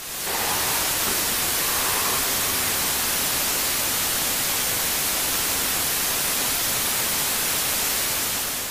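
Steady static hiss, fading in over the first half-second and fading out near the end.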